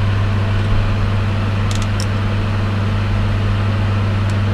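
Electric fan unit running with a steady low hum, left on as a health measure while soldering. A few faint light clicks come about two seconds in.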